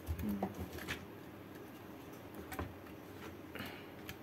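A few light clicks and small knocks as a laptop motherboard with a VGA cable plugged into it is handled and set down on a silicone work mat.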